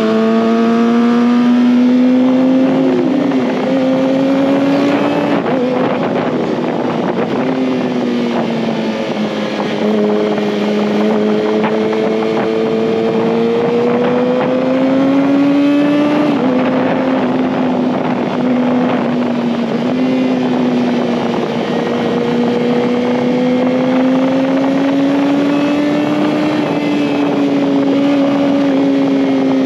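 2019 Kawasaki ZX-6R's 636 cc inline-four engine running at high revs under way, its pitch rising and falling slowly with the throttle and dropping briefly a few times. A steady rush of wind noise sits underneath.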